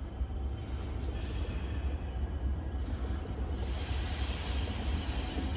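An approaching EMD SD60E diesel locomotive running light, without cars. Its rumble and rail noise build up about three and a half seconds in.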